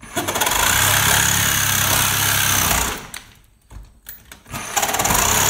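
Reciprocating saw cutting through nails at the foot of a wall stud. It runs for about three seconds, stops with a few knocks, then starts cutting again near the end.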